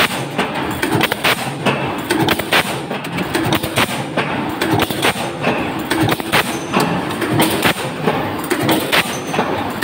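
Power press stamping sheet metal, fed by a servo roll feeder: sharp metallic strikes about twice a second over a steady machine hum.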